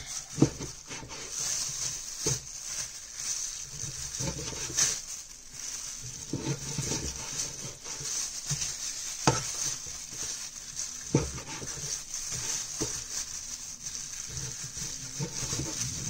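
Meat cleaver chopping raw pork on a wooden cutting board: irregular knocks of the blade going through the meat into the board. The sharpest strikes come about half a second in and about nine seconds in.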